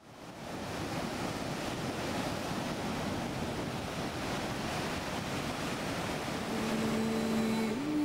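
A steady rushing wash of noise, like surf, fading in over the first half-second. About six and a half seconds in, a soft sustained music note enters and steps up in pitch just before the end.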